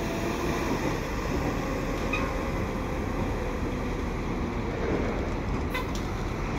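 Steady low rumble of diesel engines: a GP20C-ECO and GP38-2 pair of switching locomotives moving slowly, mixed with a container truck passing.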